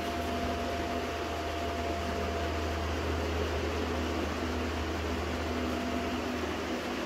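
Steady room noise from a running machine: an even hiss over a low hum and a faint steady tone, unchanging throughout.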